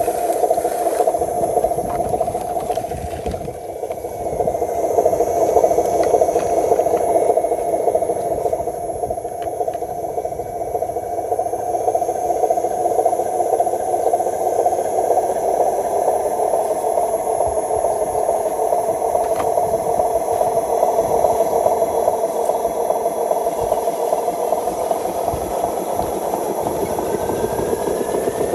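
Radio-controlled model truck running with a steady mechanical rattle, with a faint whine rising near the end as it drives off.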